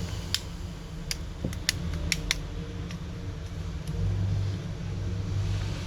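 Sharp little clicks, about seven in the first three seconds, as the plastic clips of a Huawei P Smart 2021's middle frame snap free under a plastic pry tool, over a steady low hum.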